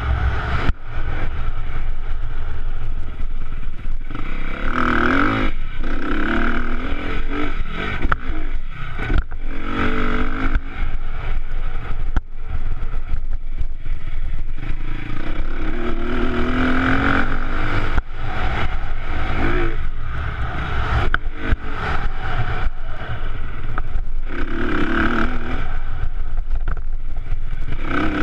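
Honda CRF250R dirt bike's single-cylinder four-stroke engine under way, the throttle opened and eased off about seven times, its pitch rising with each surge and dropping back between, heard close-up from a camera on the rider.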